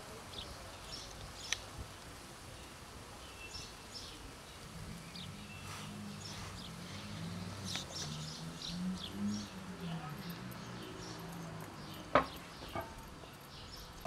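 Cats eating dry kibble from a plastic tub, with faint crunching, while small birds chirp in short high notes; a single sharp click about twelve seconds in.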